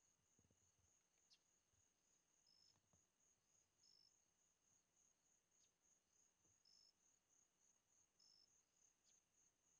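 Faint night insects, crickets, calling: a steady, rapidly pulsing high trill, with short higher chirps from another insect four times.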